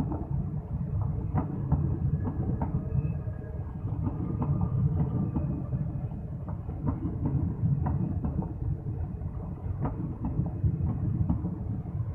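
Passenger train coaches rolling past at close range: a steady low rumble of wheels on rail, with a run of clicks as the wheels cross the rail joints.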